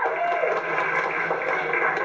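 Crowd cheering and shouting from a recorded battle performance, played back through computer speakers in a small room.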